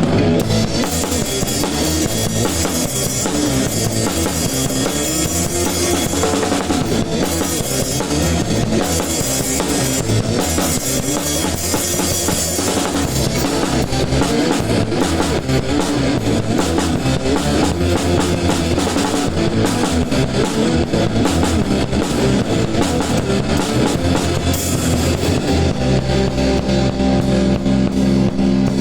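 A ska band playing live, led by a PDP Encore acoustic drum kit with electric guitar and bass. Near the end the band shifts to a steadier held sound.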